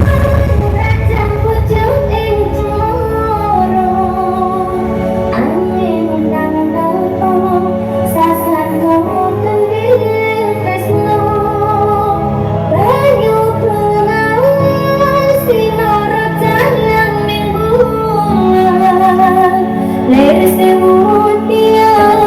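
Music with a woman singing a wavering melody over a steady, repeating bass line.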